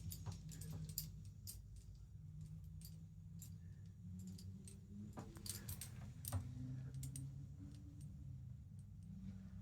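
Faint, scattered light clicks and taps over a low steady hum.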